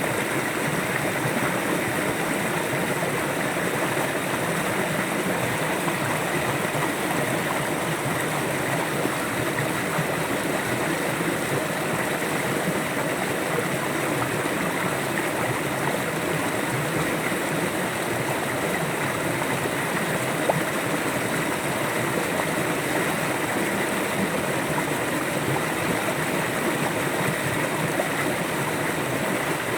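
River water flowing and burbling over rocks, a steady rushing sound.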